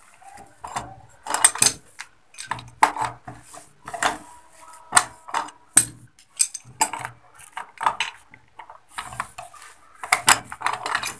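Metal wrench clinking and scraping on a brass push-valve fitting as the threaded adapter is tightened: an irregular string of sharp metallic clicks and clinks, some ringing briefly.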